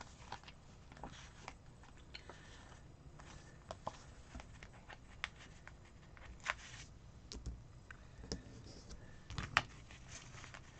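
Faint, scattered rustles and light clicks of a paper sticker sheet being handled as stickers are peeled off and pressed onto a planner page, with a sharper tick about nine and a half seconds in.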